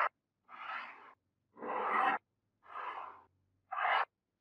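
Repeated rubbing strokes in a steady rhythm, about one a second, each lasting about half a second.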